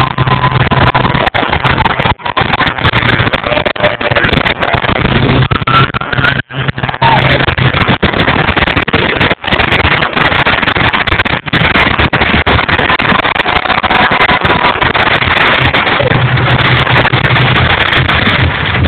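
Fireworks going off in a dense barrage: overlapping bangs and crackles with hardly a break, loud all the way.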